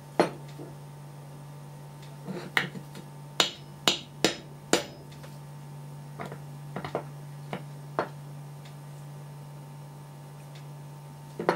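Sharp metal clicks and knocks of a Char-Lyn hydraulic steering valve body and its parts being handled and tapped against a steel workbench. A run of four louder knocks comes in quick succession about a third of the way in, followed by lighter scattered ticks, over a steady low hum.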